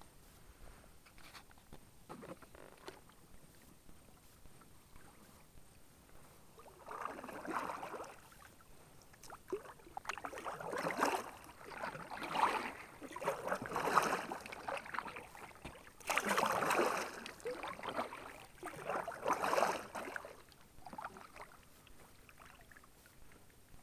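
Kayak paddle strokes: the paddle blades dip and swish through calm water. After a few faint seconds comes a run of about half a dozen strokes, one every second or two, which die away shortly before the end.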